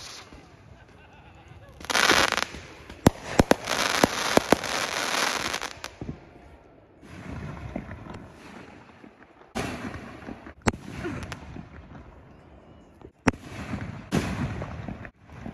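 Aerial fireworks bursting overhead: sharp bangs and stretches of crackling in several volleys, the densest and loudest a couple of seconds in, with quieter gaps between.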